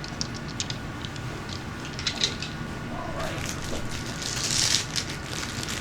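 Small gemstones clicking and clinking against each other as they are handled, with a plastic bag rustling and crinkling about four and a half seconds in.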